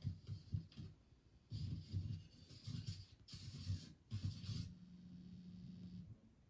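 Irregular scraping and rattling handling noises in several short bursts, then a low steady hum for about a second that stops abruptly.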